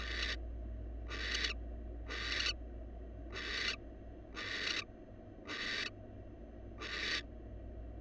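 Barn owl giving a series of harsh hissing calls, about one a second, each lasting under half a second.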